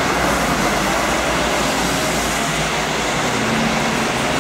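Traffic on a wet street: red double-decker buses passing, with engine rumble and steady tyre hiss on the wet road. A steady low hum joins about three seconds in.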